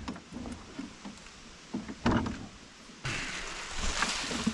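Hollow knocks and clunks of an Agri-Fab broadcast spreader's plastic hopper being handled, one louder knock about two seconds in. From about three seconds, a steady hiss and rustle as a mesh bag of grass seed is emptied into the hopper.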